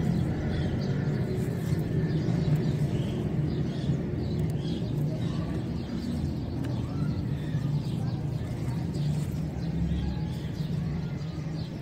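Steady low rumble of outdoor background noise, with a few faint bird calls.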